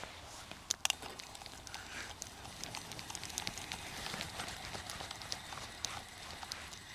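Fishing reel being wound in, a dense run of light clicks and rattles with two sharper clicks about a second in, as a small roach is reeled in.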